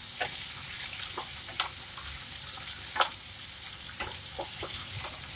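Chopped onion, garlic and tomato sizzling in hot mustard oil in a frying pan, a steady hiss, with a spatula scraping and knocking against the pan every so often as it is stirred. The tomatoes are frying in the tadka until they go soft.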